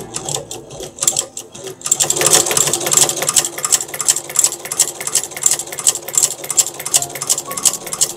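Chinese-made patcher sewing machine driven by a servo motor, stitching leather. It runs slowly and unevenly at first, then about two seconds in settles into a steady, rhythmic clatter of a few stitches a second.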